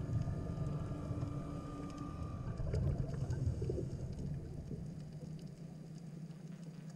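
Muffled underwater rumble picked up through a diving camera's housing, easing off over the few seconds. A faint steady whine fades out about two and a half seconds in, and there are a few faint clicks.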